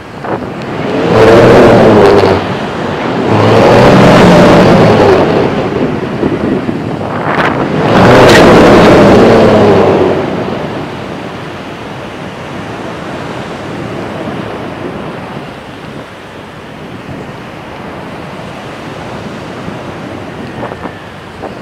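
Wind buffeting the microphone of an iPod camera hanging from a kite, with three loud gusts in the first half and a softer, steady rush of wind and surf after that.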